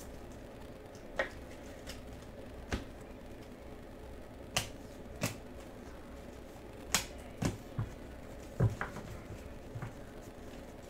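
Trading cards being handled and stacked by hand, some in clear plastic holders: about ten irregular sharp clicks and taps as cards and holders knock against each other and the table, over a low steady hum.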